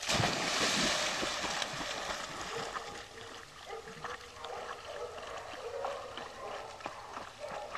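A dog jumps into a pond with a loud splash that dies away over about two seconds, followed by quieter water noise as it swims off.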